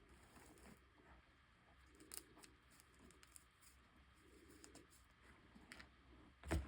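Faint small crackles and clicks of chalk being handled, with one loud sharp snap near the end.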